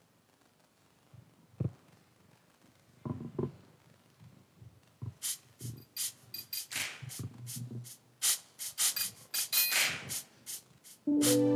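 Handling noise from handheld microphones: scattered knocks, clicks and rubbing, sparse at first and getting busy about five seconds in. Just before the end a keyboard starts a sustained chord.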